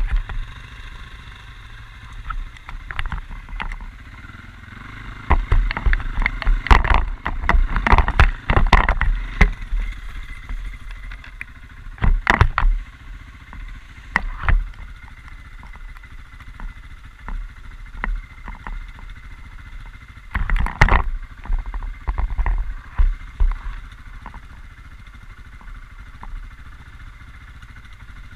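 Quad bike (ATV) running with irregular bursts of knocks and clatter, the longest in the first third and shorter ones later, between quieter spells.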